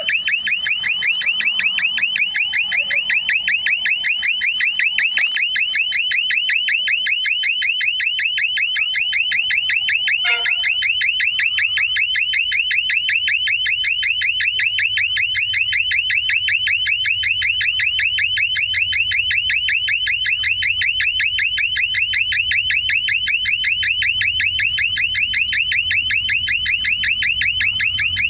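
Electronic train-alarm safety device used during railway track work, sounding a loud, high-pitched tone that pulses rapidly and evenly without a break.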